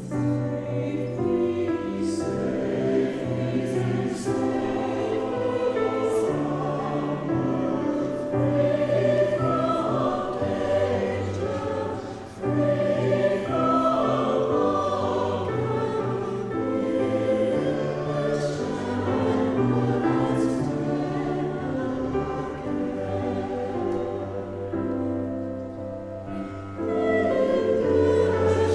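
A choir singing sustained chords in a traditional church style, with a short break about twelve seconds in.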